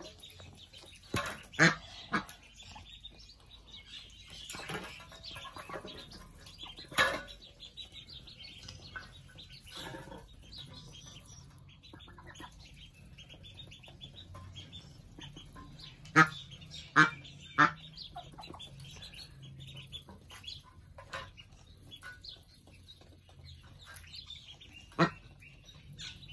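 Ducklings peeping continuously while feeding, with a domestic duck giving short, loud quacks now and then, three in quick succession partway through.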